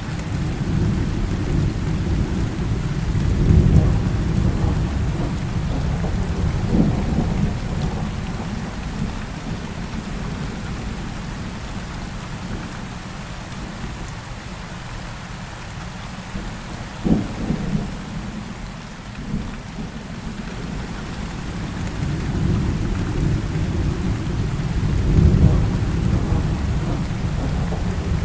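Heavy rain falling steadily with rolling thunder. Deep rumbles swell a few seconds in and again near the end, and a short, sharp thunderclap comes about halfway through.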